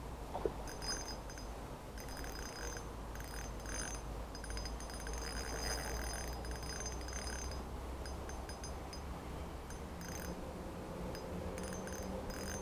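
Spinning reel whirring in short bursts, with high metallic ringing, as a hooked chub is played and reeled in on a bent rod. Low wind rumble underneath.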